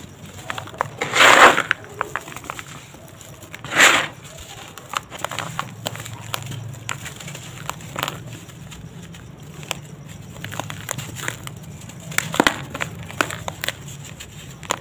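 Hands crushing and crumbling caked lumps of dry sand cement in a plastic tub: crunchy, gritty crumbling with scattered crackles. There are two louder crunches, about a second and about four seconds in, and another short burst around twelve seconds in.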